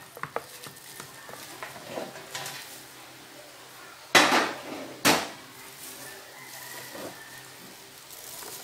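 Blanched chicken drumsticks being handled and moved about in a plastic basin: scattered soft knocks and clatters, with two louder bangs about four and five seconds in.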